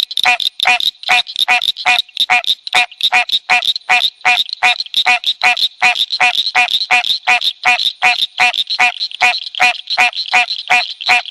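Frogs calling in a rapid, regular series of short croaks, about three a second, over a steady high-pitched trill.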